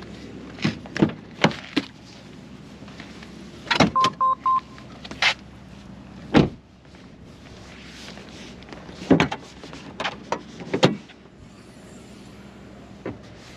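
Sharp clicks and knocks from handling a parked Polestar 2, with three short electronic beeps about four seconds in. The last cluster of knocks, near the end, comes as the front trunk lid is opened.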